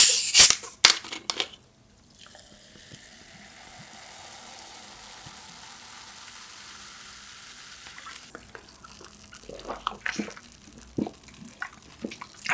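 A plastic cola bottle's cap is twisted off with a few sharp clicks, then the cola is poured into a glass mug in a steady stream for several seconds. After the pour come scattered small crackles from the fizzing carbonation.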